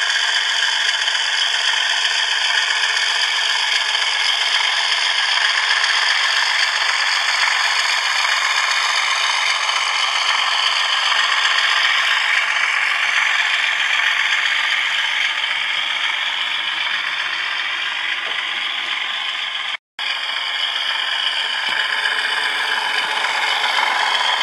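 Model railway locomotive running on track: the steady whir and rattle of its small electric motor and wheels over the rails. The sound cuts out for an instant about twenty seconds in.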